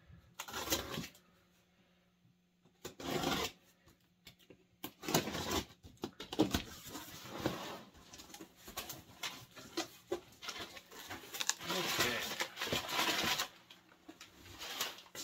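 A cardboard shipping box being cut open and unpacked: short scraping and rustling bursts, then steady rustling and crinkling of cardboard and packing material from about five seconds in to near the end.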